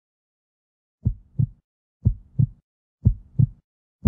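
Heartbeat sound effect: paired low thumps, a lub-dub about once a second, beginning about a second in after dead silence.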